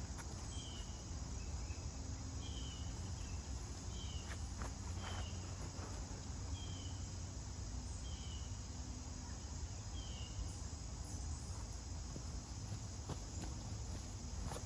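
Steady high buzzing of an insect chorus, with a row of short, high, falling chirps about once a second that stop about ten seconds in.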